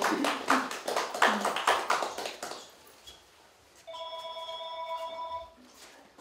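Audience clapping for about two and a half seconds, with some voices. After a short pause comes a steady electronic tone of several pitches held together for under two seconds, which then cuts off.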